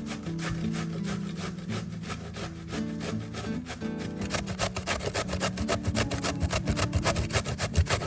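Fast, rhythmic scraping strokes of a kitchen tool working food by hand, about ten a second, growing louder about halfway through, over soft background music.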